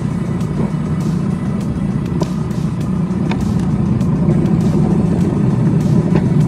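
Miniature railway locomotive running steadily along the track, with repeated light clicks from the wheels passing over the rail joints.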